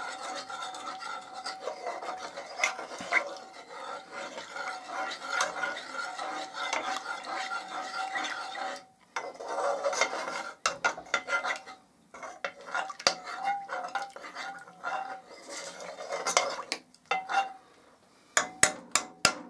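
Stirring homemade violet wood stain in a vessel, with a utensil scraping and rubbing round the sides and giving off a ringing squeak. This works in a freshly added pinch of crushed dye. The stirring pauses briefly a few times, and near the end comes a quick run of sharp clicks.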